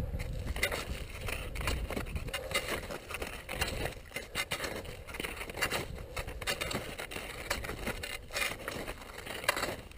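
Alpine touring skis scraping and hissing over snow in downhill turns, with wind rumbling on the microphone.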